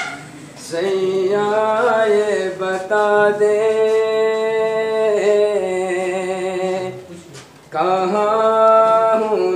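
A man singing unaccompanied in long, held melodic phrases, with a short break about seven seconds in before the next phrase starts.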